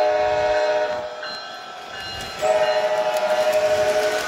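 Model Amtrak locomotive's horn sounding a multi-note chord twice. The first blast starts at once and fades after about a second; the second, louder and longer, starts about two and a half seconds in.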